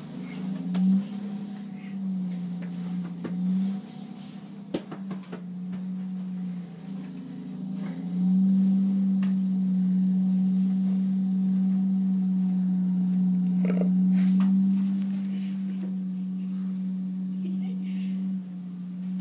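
Low, steady drone of a wheel loader's snowblower attachment heard through window glass. Its pitch wavers over the first few seconds, then holds steady from about a third of the way in.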